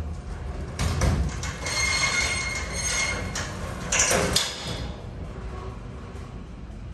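Otis elevator doors sliding shut, with a steady whine, then the car starting up and running with a low rumble.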